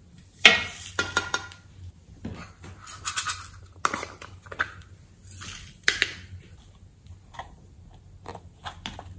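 Small plastic containers handled over a glass bowl: a string of sharp clicks and taps, with a short rattle of glitter and sprinkles being tipped out about three seconds in.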